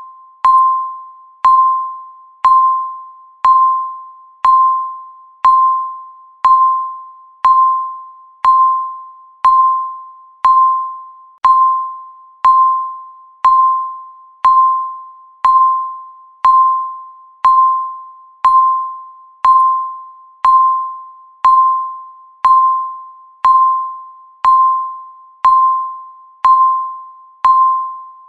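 Countdown timer beep sounding once a second, steady and evenly spaced: each beep is a single mid-pitched electronic tone that starts sharply and fades away before the next.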